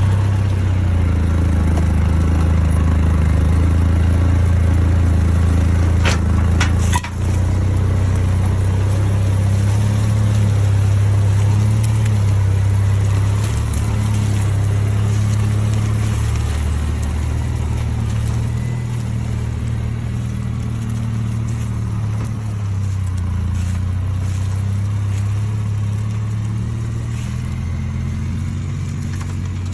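A vehicle's engine running steadily with a low hum that rises and falls a little, with a short clatter and a brief dip about seven seconds in.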